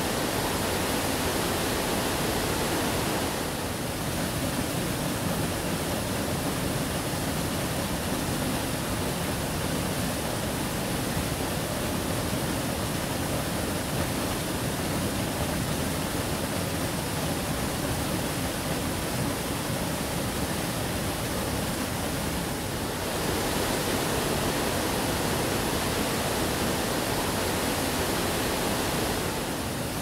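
Large mountain waterfall pouring over boulders: a steady, full rushing of falling water, its tone shifting slightly a few seconds in and again about two-thirds of the way through.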